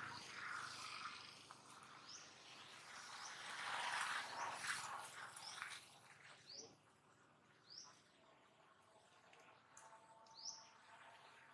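A bird repeats short, rising chirps every second or two. A soft rushing noise underneath fades out about halfway through.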